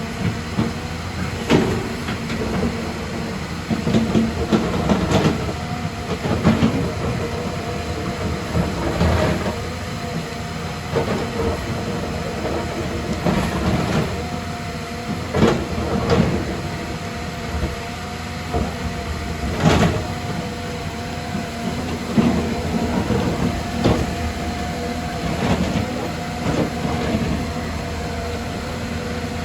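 Excavator's diesel engine running steadily, with irregular metal clanks and knocks every couple of seconds as the machine works.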